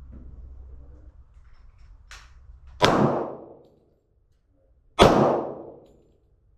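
Two gunshots about two seconds apart, each a sharp crack trailing off in about a second of echo, with a fainter crack shortly before the first.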